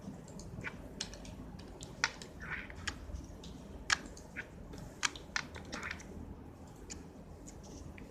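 Slime being squeezed and worked by hand, with irregular sharp little clicks and pops and a few short squelches.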